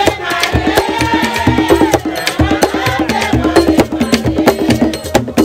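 Traditional Haitian Vodou song: quick, steady drum and sharp percussion strokes under a singing voice that holds one long note about a second in.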